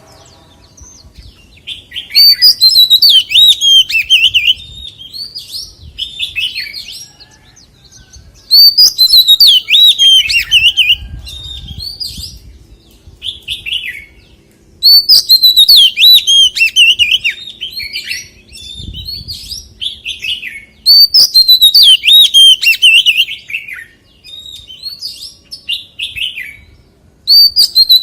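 Oriental magpie-robin singing: loud, varied whistled song phrases that come in bouts about every six seconds, with softer phrases in between.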